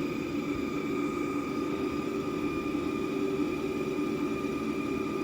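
Delta WASP 2040 clay 3D printer's stepper motors running steadily as the delta arms drive the print head down after homing, a constant whine of a couple of steady tones over a low hum.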